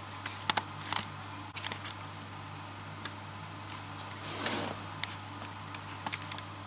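Handling noise of unboxing: scattered sharp clicks and taps, with a brief rustle about four and a half seconds in, over a steady low hum.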